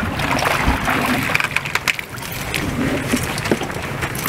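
Outboard motor running steadily on a fishing boat under wind and water noise, with scattered clicks and knocks from rods and gear being handled.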